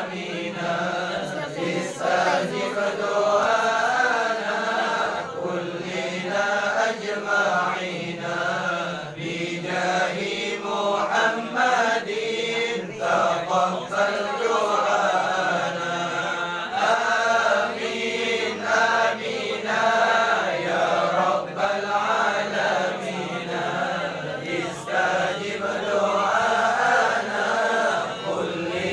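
A group of men chanting Arabic devotional prayers together, a continuous melodic chant with no pause.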